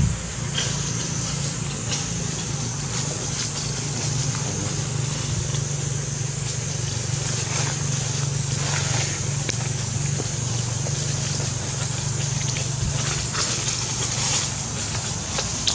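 Steady outdoor background: a low motor-like hum with a constant high hiss over it and faint clicks now and then.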